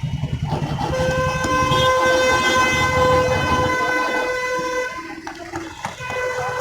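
A vehicle horn blowing one long, steady blast with an engine running beneath it. The engine stops partway through, and the horn sounds again briefly near the end.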